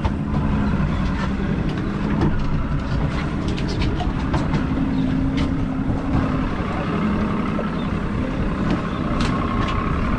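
Boat's outboard motor idling with a steady low hum, with scattered sharp clicks throughout.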